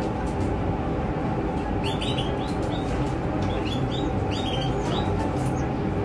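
Nestling songbird chicks cheeping, short rising peeps in quick runs, their begging calls while being hand-fed from a syringe. A steady low hum runs underneath.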